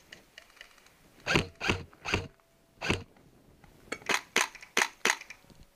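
Close airsoft gunfire: single sharp cracks fired one after another, about a third of a second apart, in two strings of about four.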